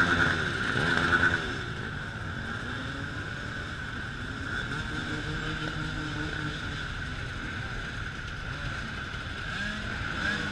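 Many enduro dirt-bike engines running at once as a dense pack of bikes rides slowly past. Engines rev louder in the first second or so, then settle into a steady mix of overlapping idling and low-revving engines.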